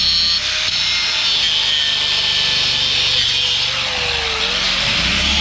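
Electric jackhammer chiselling into concrete: a continuous, loud clatter of rapid blows with a motor whine that wavers in pitch.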